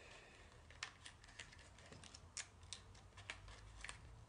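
Faint, irregular light clicks and ticks of small candies and their packet being handled and spilled.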